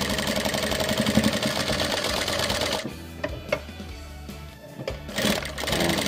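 Industrial high-speed single-needle lockstitch sewing machine stitching through fabric. It stops about three seconds in, a few light clicks follow, and it starts again near the end.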